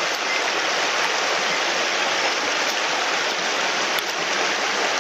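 A shallow mountain stream running over rocks close by: a steady, even rush of water.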